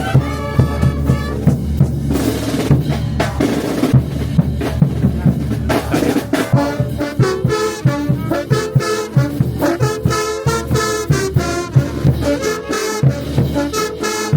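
Brass band of trumpets and trombones playing a tune over a steady, regular drum beat, with a cymbal wash a couple of seconds in.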